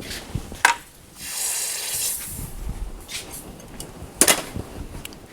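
A short hiss lasting about a second, between two sharp metallic clicks of tools on the link being heated and twisted, one before and one about two seconds after it.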